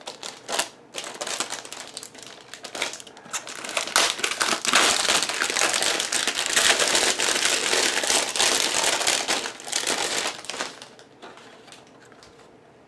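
Thin clear plastic protective film being peeled and pulled off a router's casing, crinkling and crackling. It is densest from about four to ten seconds in, then dies away.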